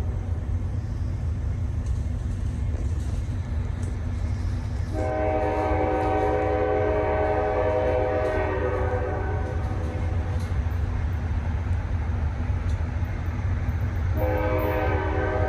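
Locomotive air horn sounding a chord of several tones: one long blast of about five seconds, then another beginning near the end, over a steady low rumble from the moving train.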